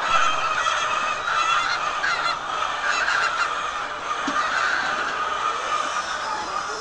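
A large flock of chickens on a poultry farm calling and clucking all at once, a dense, continuous chorus of overlapping calls.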